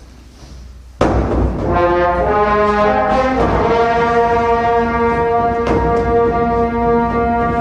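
A sudden loud hit about a second in, followed by brass music: a few shifting notes, then a long held chord.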